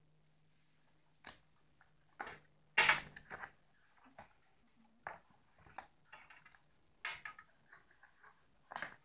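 Cardboard packaging and tape being picked at and pulled loose by hand: scattered short rustles and scrapes, the loudest a sharp burst about three seconds in.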